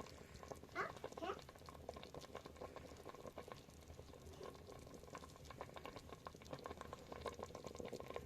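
A cat meows twice, faintly and briefly, about a second in, over a steady fine crackling.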